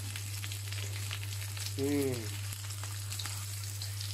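Breadcrumbed pork chops shallow-frying in oil in a non-stick pan: a steady crackling sizzle with small pops, over a steady low hum. About two seconds in, a brief hummed voice sound rises and falls.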